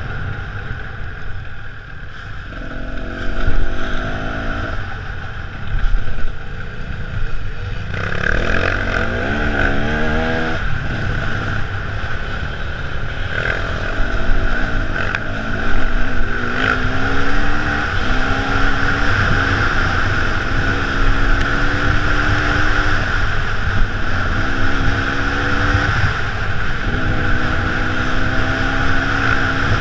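Enduro motorcycle engine heard from on board the bike, revving up repeatedly as it accelerates and dropping in pitch at each gear change, over a steady rumble.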